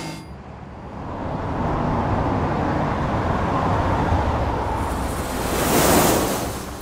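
Sound effect of a rushing traffic rumble that builds into a jet airliner passing overhead, loudest about six seconds in, then stops abruptly.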